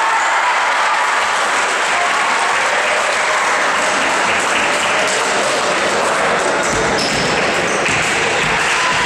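Crowd and players in a gym hall applauding, cheering and chattering after a volleyball point, a dense, echoing wash of noise. A few dull thuds come in late, about seven to eight seconds in.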